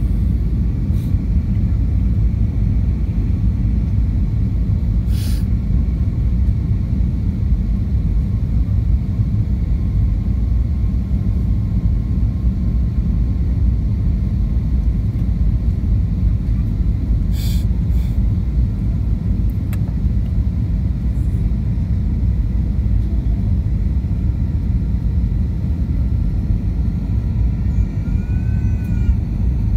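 Airbus A320-232 cabin noise on descent for landing: the steady, deep rumble of its IAE V2500 turbofans and the airflow over the airframe, heard inside the cabin beside the wing, with two brief clicks.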